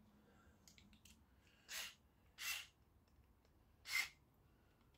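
Three short breaths, two close together about two seconds in and one near the end, over faint handling clicks.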